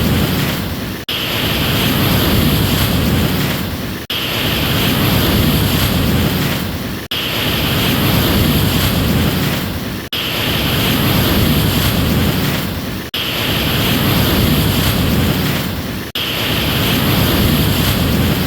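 Ocean surf: a loud, even rushing wash that swells and then breaks off abruptly about every three seconds, the same short stretch of wave sound looped over and over.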